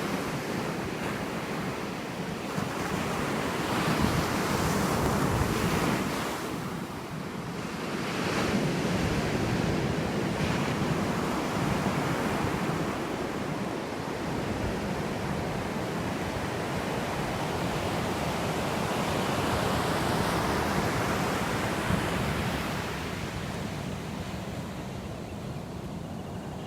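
Ocean surf breaking and washing up the beach, with wind buffeting the microphone; the wash swells and eases several times and grows softer near the end.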